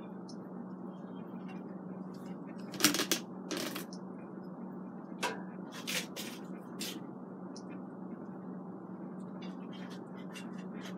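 Kitchen tongs clicking and tapping against an air fryer basket and a plate as cooked chicken wings are lifted out, a handful of light clacks, the loudest about three seconds in. A steady low hum runs underneath.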